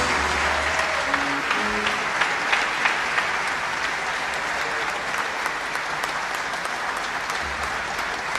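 Audience applauding in a hall, dense and steady, as the orchestra's final chord dies away at the very start.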